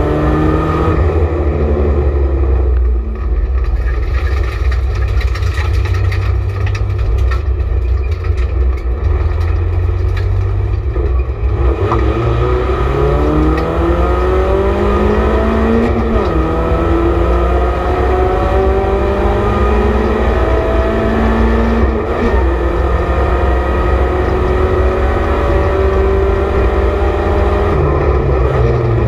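BMW Compact race car's engine heard from inside the stripped cabin at racing speed, with a heavy low drone under the engine tone. About twelve seconds in the revs climb steadily, drop sharply once at a gear change about sixteen seconds in, then climb again before falling near the end.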